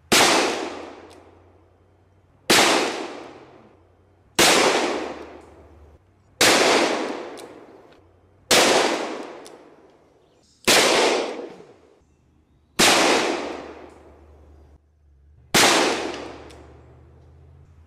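.357 Magnum handgun firing eight single shots, roughly two seconds apart. Each sharp report is followed by an echo that dies away over a second or two.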